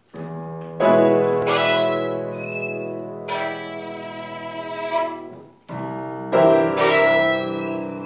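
Violin and piano duo playing. The music starts just after the beginning, breaks off briefly about five and a half seconds in, then comes back in.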